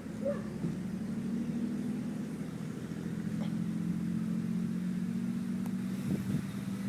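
A vehicle engine idling with a steady, even low hum.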